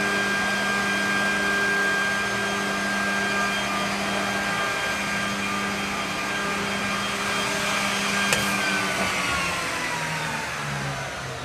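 Holz-Her edge bander running, a steady motor hum with several fixed tones. About two-thirds of the way through a sharp click is heard, then the tones slide down in pitch as the machine's motors wind down.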